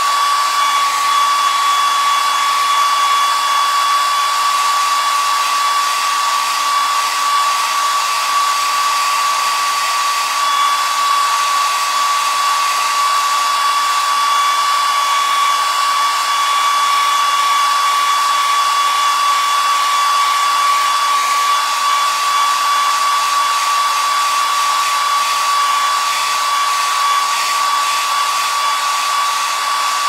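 Hair dryer running steadily: a constant rush of blown air with a steady high-pitched motor whine.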